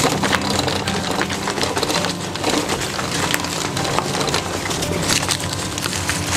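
Dry leaves and twigs crackling and snapping as they are crushed on a dirt path, a dense, irregular run of small crackles.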